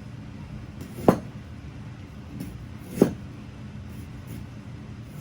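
Two sharp knocks of a kitchen knife on a chopping board, about two seconds apart, while cutting ginger, over a steady low hum.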